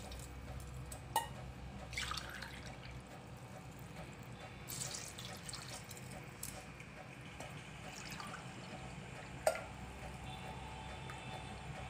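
Water poured from a glass tumbler into a pressure cooker pot of rice and coconut milk, splashing and dripping in a few separate pours, with a couple of sharp clicks.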